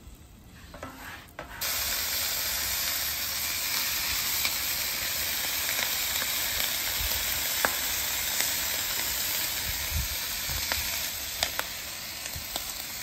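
Bologna and ham slices frying on a hot flat-top griddle: a steady sizzle that starts abruptly about a second and a half in, with a few faint clicks.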